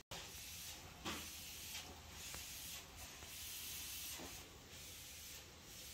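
Faint steady hiss of outdoor background noise, with a few soft knocks about a second in, near two seconds and again around four seconds.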